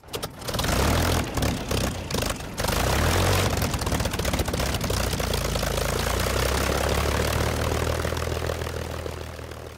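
A propeller plane's engine running steadily: a low hum under a rush of noise that fades away near the end.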